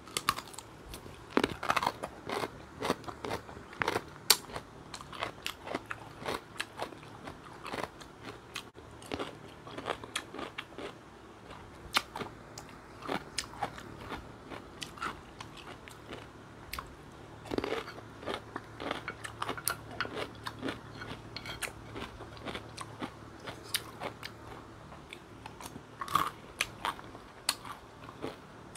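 Close-miked chewing and crunching of crisp food: a green chili bitten, then fried dried anchovies and squid chewed with rice. There are irregular crunches throughout, with a louder one about four seconds in.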